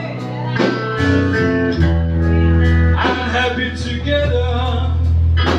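Live blues band playing, guitar to the fore over a sustained bass line and drums.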